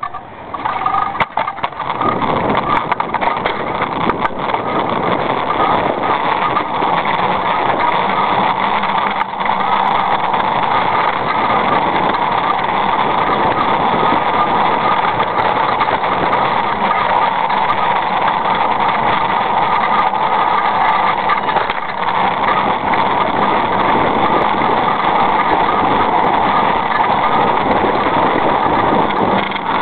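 Steady running and rolling noise of a small vehicle moving over paved ground, picked up close beside one of its wheels, with a constant hum in it. A few knocks come in the first two seconds before the sound settles.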